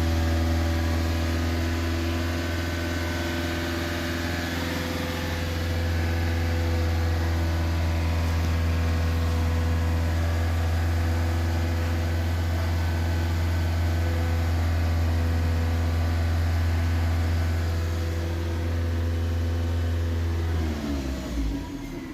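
Toyota C-HR engine running steadily after a no-start fault has been cleared. About twenty seconds in it is switched off, its pitch falling as it winds down.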